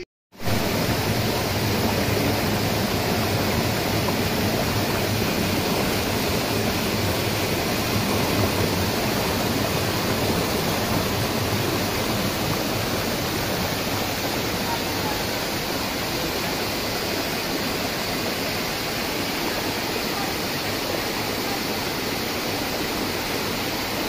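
Waterfall pouring over rocks into a pool: a steady, unbroken rush of water. It starts abruptly after a brief gap right at the start.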